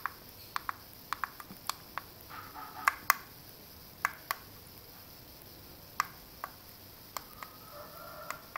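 Plastic buttons on a Taffware Bluetooth alarm clock clicking as they are pressed to set the alarm minutes: about a dozen sharp clicks at uneven intervals, the two loudest about three seconds in.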